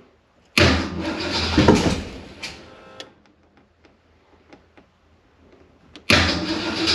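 Starter cranking a Ford engine twice, a couple of seconds each time, with the engine not catching; the owner takes it for ignition timing set 180 degrees out after the distributor went in off top dead center. Faint ticks between the two cranks.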